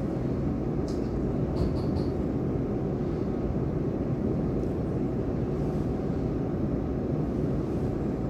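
Steady low rumble and hum inside the cabin of a Taiwan Railways EMU800-series electric commuter train standing or creeping at a station platform. A few faint short high chirps come about one to two seconds in.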